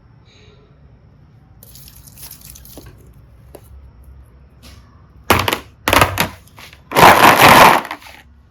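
Slime being squeezed and worked by hand: faint wet crackling, then three loud squelches, the last the longest.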